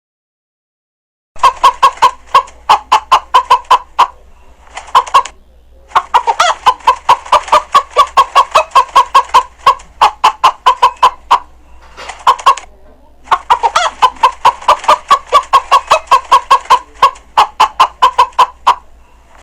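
Chickens clucking in fast, even runs of about five sharp clucks a second, broken by short silences.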